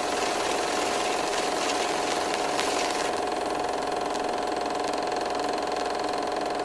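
Steady mechanical whirr with a constant mid-pitched hum, as of a small motor running, starting abruptly and holding even.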